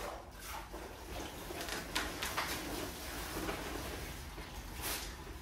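Irregular rustling and scraping as bagged concrete mix and water are worked together on a tarp.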